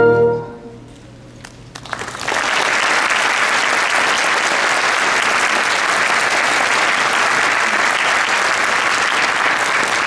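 A school symphonic band's final held chord cuts off and rings briefly in the hall; after a moment of quiet a few scattered claps start, and about two seconds in the audience breaks into steady applause.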